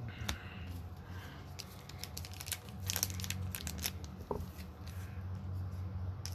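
Crinkling and scattered light clicks of hands handling trading cards and their packaging, over a steady low hum.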